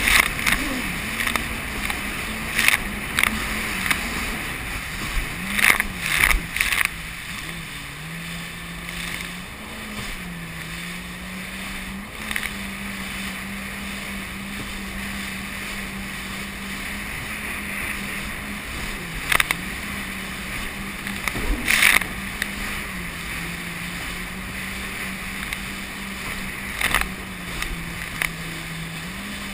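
Jet ski engine running at a steady cruising speed, its pitch dipping and recovering a little now and then, over a steady hiss of water. Several short sharp splashes cut through it, the loudest about six seconds in and again after about twenty seconds.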